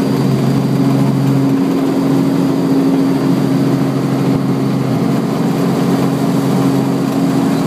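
Helicopter engine and rotor noise heard inside the cabin in flight: a loud, steady drone with low tones, the lowest of which drops away about a second and a half in.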